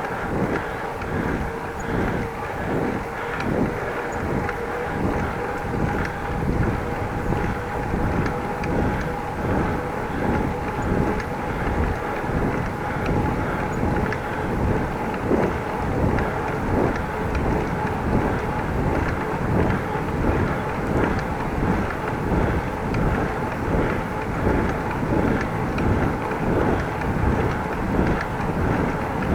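Bicycle ride heard from the bike: tyre and road noise with wind on the microphone, a faint steady hum, and a regular pulsing about twice a second.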